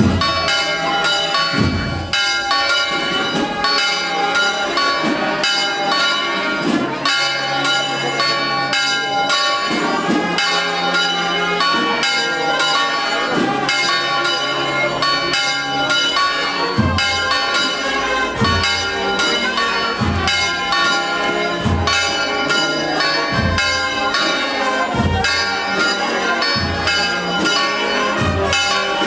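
Church bells pealing continuously, many ringing tones overlapping. A deeper stroke recurs about every second and a half through the second half.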